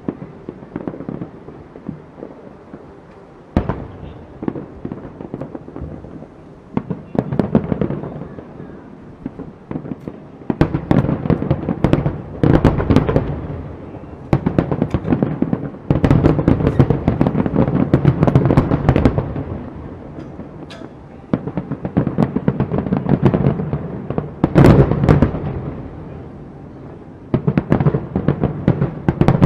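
Aerial fireworks display: shells booming and crackling in dense, rapid volleys that come in waves, with the heaviest barrages about a third of the way in, around the middle, and near the end.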